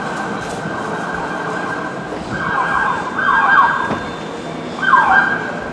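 Siren sounding, with quick falling sweeps in pitch about two, three and five seconds in.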